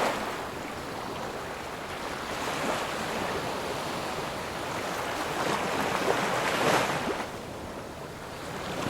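Sea waves washing onto a pebble beach, a steady rush that swells twice and then eases off.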